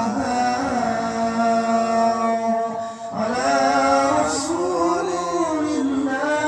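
A man's voice chanting Quran recitation (qiraah) in the melodic, ornamented qari style, with long held notes that waver in pitch. He pauses briefly for breath about three seconds in.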